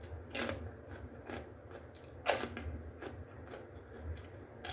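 Someone chewing and biting into food close to the microphone, with two louder crunches about two seconds apart among softer chewing clicks.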